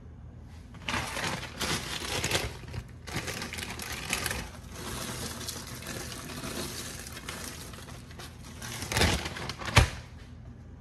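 Crinkling plastic bag and sliced pepper and onion strips spilling out of it onto raw chicken in a cast-iron skillet, coming in uneven spurts, with two louder knocks near the end.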